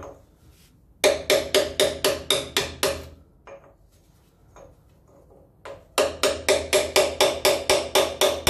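Hammer blows on a big flat steel punch, folding a hub locking washer flat against the nut on a Land Rover Series hub. The blows are rapid, ringing, metallic taps at about four a second. One run of about eight starts a second in, and a second run of about a dozen starts about six seconds in.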